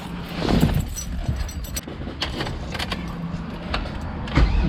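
Car keys jangling and clicking as the ignition key of an LS1-swapped Mazda RX-7 is handled before starting, with a low thump near the end.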